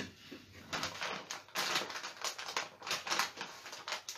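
Stamping supplies being handled by hand: a sharp click, then a rapid, irregular run of clicks and crinkles.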